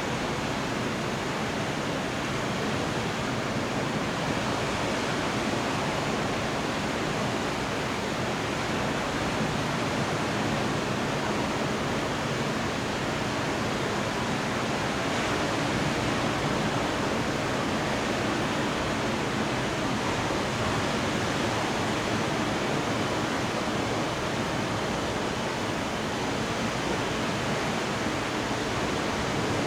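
Heavy rain falling during a thunderstorm: a steady, even rushing hiss that holds the same level throughout.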